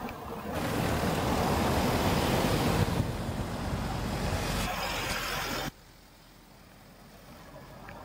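Car noise: a loud steady rush that cuts off abruptly about six seconds in, leaving only a faint background.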